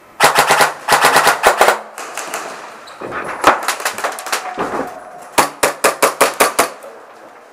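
Airsoft guns firing quick strings of BB shots: two rapid strings near the start, scattered single shots in between, and another rapid string of about eight shots from about five and a half seconds in.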